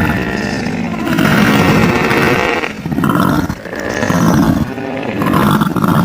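Made-up creature sound effect for an Andrewsarchus: a run of about four growling calls, each roughly a second long, following one another with short gaps.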